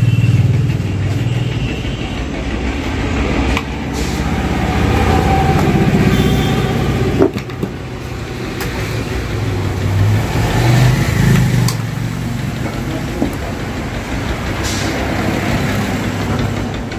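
Low rumble of a motor vehicle engine that swells and eases over several seconds, with a few sharp clicks over it.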